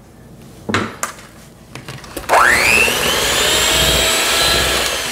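Handheld electric mixer switched on about two seconds in. Its motor whine rises as it spins up, then runs steadily with its beaters in a thick mascarpone and egg-yolk mixture. Two light knocks come before it starts.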